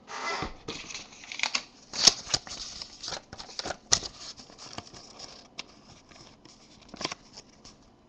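Trading cards and paper being handled close to the microphone: crackly rustling broken by sharp clicks and snaps, loudest about two and four seconds in, dying down near the end.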